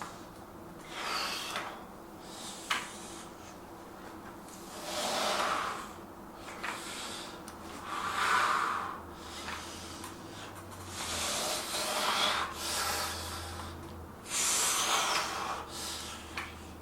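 A man breathing hard through a set of dumbbell lifts, with a forceful breath about every three seconds in rhythm with the reps. A couple of faint clicks fall between the breaths.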